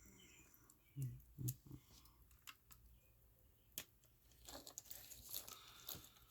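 Faint handling noises from small watch-repair tools and parts: a couple of soft knocks about a second in, a few sharp clicks, then rustling and crinkling over the last couple of seconds.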